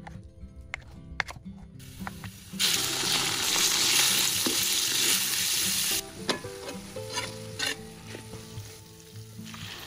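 Minced pork and garlic frying in hot oil in a wok: a loud, even sizzle starts about two and a half seconds in and drops off abruptly around six seconds. After that a metal spatula scrapes and taps against the wok as the meat is stirred. Soft background music plays underneath.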